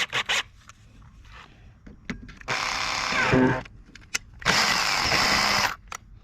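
Electric drill run in two bursts of about a second each, drilling out the stripped bolt hole in an alloy cylinder head with a helicoil kit's drill bit. A few sharp clicks come just before the first burst.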